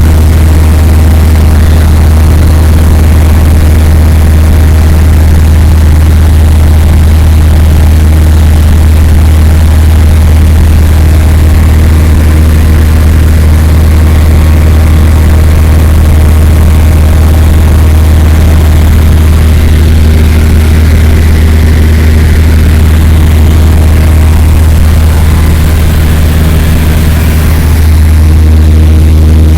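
Cessna 172M's four-cylinder Lycoming engine and propeller droning steadily, heard from inside the cabin. The sound is loud enough to overload the microphone.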